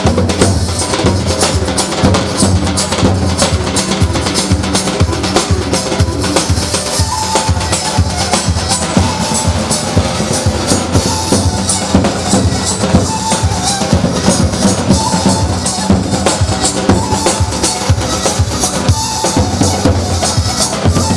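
Davul, the large double-headed bass drum, beaten with a stick in a fast, steady dance rhythm, with a melody line over the drumming: live music for a line dance (halay).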